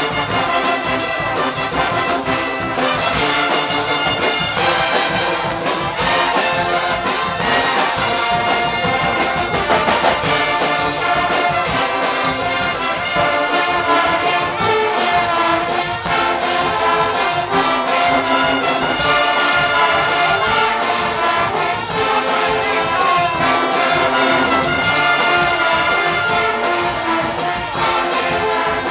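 Guggenmusik band playing live: massed trumpets, trombones and sousaphone carry the tune over a steady beat of drums and crashing cymbals.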